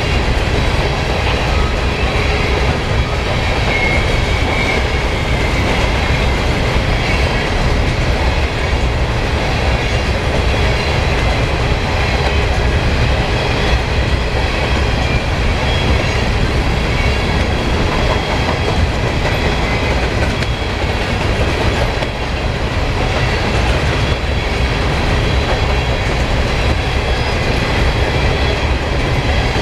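Norfolk Southern freight train's covered hopper cars rolling past close by, steel wheels clattering over the rails with a steady, unbroken rumble.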